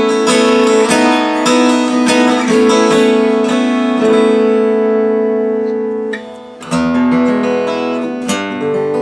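Larrivée acoustic guitar with a bone compensated saddle, played unplugged: a progression of strummed chords, each left to ring before the next strum.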